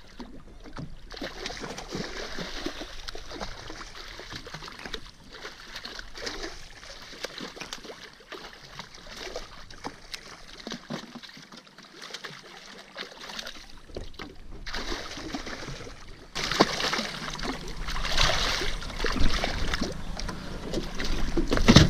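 Water splashing and sloshing at the side of a small boat as a hooked fish thrashes at the surface and is grabbed by hand, growing louder in the last few seconds.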